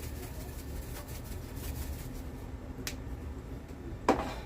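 Kitchen handling while seasoning chicken: a few faint light taps, then one sharp knock near the end, like a seasoning container being set down on the counter.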